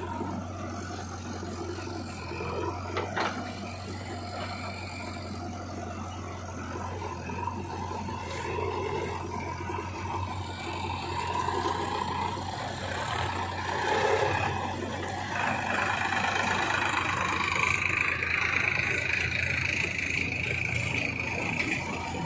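Diesel engines of a JCB 3DX backhoe loader and a tractor running steadily. About halfway through the sound gets louder, and a higher whine joins in.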